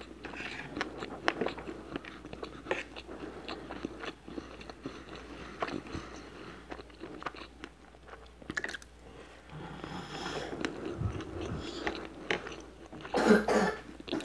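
Close-miked chewing and mouth sounds of someone eating rice and hamburger patty, with many small wet clicks. Near the end there is a loud, short cough.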